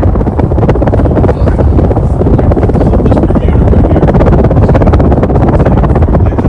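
52-inch Gulf Coast Renaissance ceiling fan running on high, its strong downdraft rumbling and buffeting across the microphone in a loud, steady rush.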